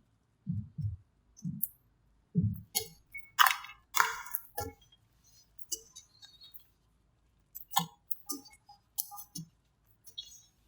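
Slime being squished and worked by hand. Soft low squelching pops come first, then crisp crackling clicks in scattered clusters.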